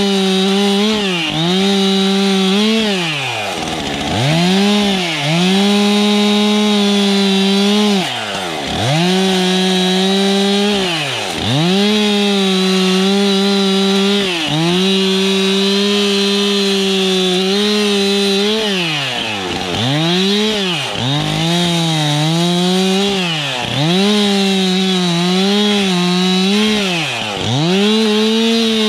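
Stihl MS 362 two-stroke chainsaw with a 45 cm bar limbing a felled spruce, running at high revs through the cuts. The engine note dips sharply and climbs back again every few seconds, most often in the second half.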